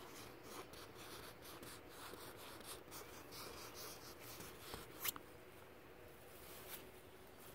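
Fingernails scratching lightly and irregularly on a taut fabric canopy, a faint scritching made of many short strokes, with one sharper click about five seconds in.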